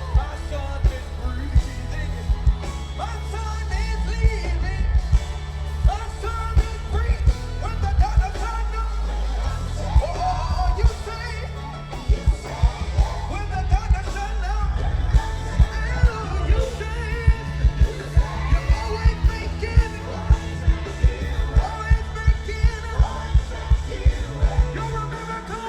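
Live gospel band playing an upbeat song with heavy bass and a pounding kick drum under sung vocals, with shouts now and then; the drum beat turns steadier and quicker about halfway through.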